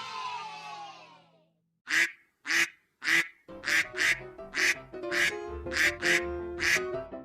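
A cartoon duck quacking in a quick run of short quacks, about two a second. A short tune fades out first, and music with a low melody starts under the quacks about halfway through.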